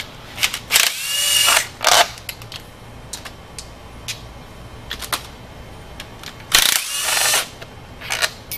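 Cordless drill with a socket spinning out the lower timing cover bolts, in two short whirring runs whose pitch rises and falls, one about a second in and one near the end. Sharp clicks of the tool and metal parts come between the runs.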